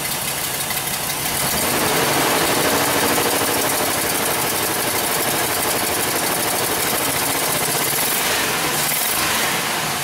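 Chevrolet Express 6.0-litre V8 idling roughly with a bad misfire, skipping like crazy, while the scan tool counts misfires on two cylinders.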